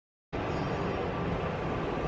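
Silence, then about a third of a second in a steady, low, rumbling background noise of the climbing gym begins suddenly, with a faint steady tone running through it.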